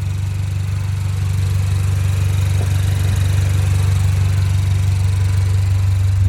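2022 Acura TLX A-Spec's turbocharged 2.0-litre four-cylinder engine running steadily with a deep, even drone. It breathes through a K&N cold air intake and a catback exhaust, and it gets slightly louder about two seconds in.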